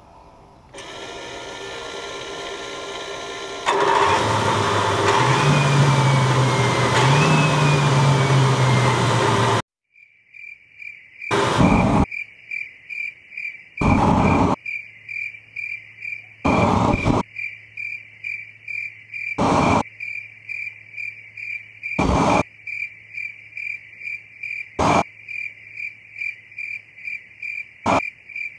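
TS-21 turbostarter, a small gas-turbine engine burning degreaser as fuel, spinning up with a rising whine, then jumping sharply in loudness as it lights up about four seconds in; its pitch rises and eases off twice before the sound cuts off abruptly near ten seconds. After that comes a steady high pulsing chirp with a low hum, and a sharp loud burst every two to three seconds.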